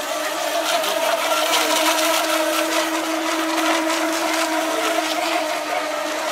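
RC racing speedboats running flat out, their motors giving a steady, high-pitched whine that holds its pitch, over the hiss of spray.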